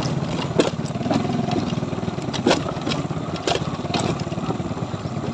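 Small motorcycle engine running steadily while riding over a wooden plank deck, with several sharp knocks and rattles from the planks and bike.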